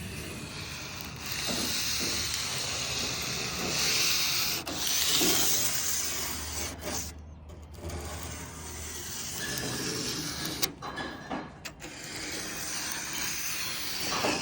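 Emery cloth (fine aluminium-oxide plumber's sanding tape) rasping back and forth along the sharp stainless-steel edge of a Cybertruck body panel, as the rough edge is smoothed and rounded. The sanding runs in long stretches with a few brief pauses.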